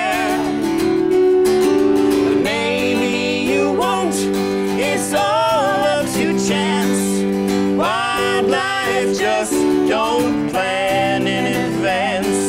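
A song played on strummed acoustic guitar and an electric stage keyboard, with singing voices holding long notes with vibrato over the accompaniment.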